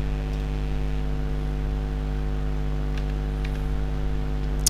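Steady low electrical hum made of several constant tones, over a faint hiss.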